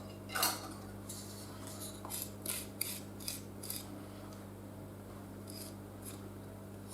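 Desiccated coconut being scraped into a mixing bowl: a run of short, dry scraping strokes, with two more near the end. A steady low hum from the oven warming up runs underneath.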